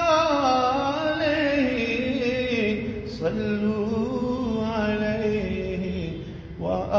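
A man singing a naat unaccompanied, drawing out long wavering notes. He breaks briefly for breath near the end, then starts the next phrase.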